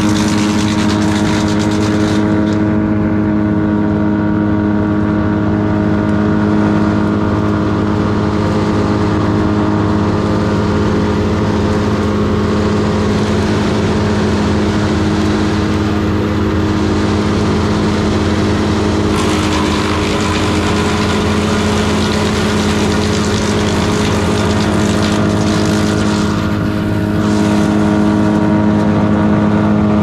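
Wood chipper's engine running steadily at high speed while brush is fed through it by hand, the cutter chewing branches into chips. The harsh chipping noise comes and goes, heaviest in the last third.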